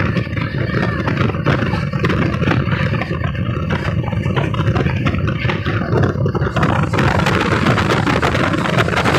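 A freight train passing close on the next track, heard from the window of a moving express: a dense rattling rush of wagons and wheels over the rails. About seven seconds in, as its electric locomotive goes by, the rattle gives way to a steadier rush of wind and the express's own running noise.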